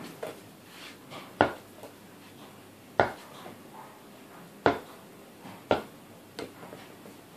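Pink plastic play ball bounced on a carpeted floor and caught, making five sharp thumps about one to one and a half seconds apart.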